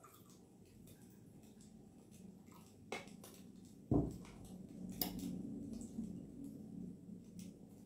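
Faint pouring of tea from a kettle into a ceramic mug, then a knock near three seconds and a heavier thump about four seconds in as the kettle is set down on the table. A click and quiet handling of the mug follow.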